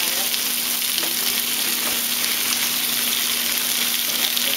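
Sliced zucchini and onion sizzling in hot oil in a stainless-steel pan over high heat, stirred with a wooden spoon. The sizzle is a steady hiss.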